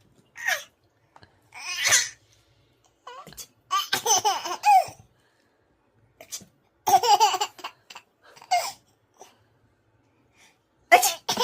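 Young child laughing hard in repeated bursts of high-pitched giggles and belly laughs, with short pauses between them.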